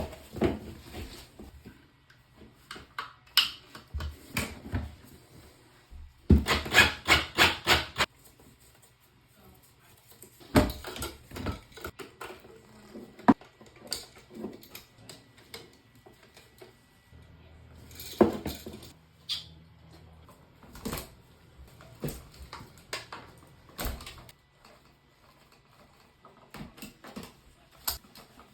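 Scattered clicks, taps and rattles of hands handling tools and parts, with a quick run of rapid clicks about six seconds in and another cluster of knocks about eighteen seconds in.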